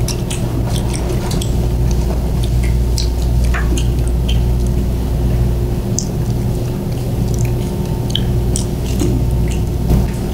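People chewing sushi, with many small, scattered mouth clicks and smacks, over a steady low hum.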